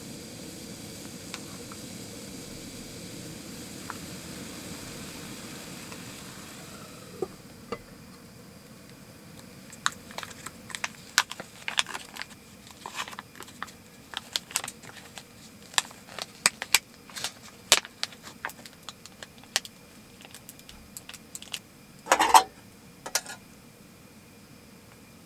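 A steady hiss that dies away about seven seconds in, then a long run of light clinks, taps and clicks of cooking gear and utensils, with a louder clatter near the end.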